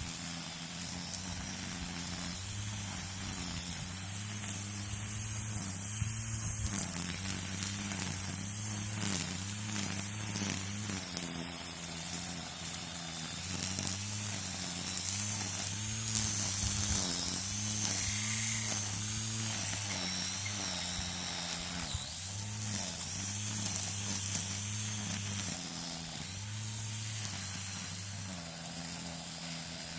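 String trimmer (weed eater) running and cutting, its motor pitch holding then easing off every few seconds as the throttle is let up and squeezed again, with a hiss from the spinning line.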